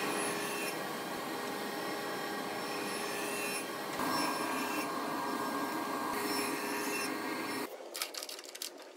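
Sliding table saw blade cutting a tenon in a wooden board, a steady cutting noise with a faint whine. It gets a little louder about four seconds in and stops suddenly near the end.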